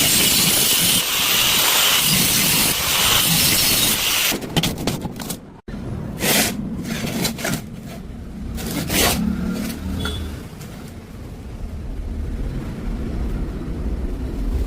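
Steady, harsh metalworking hiss on square steel pipe that stops about four seconds in. Then a series of sharp metallic knocks and clatters over a low rumble.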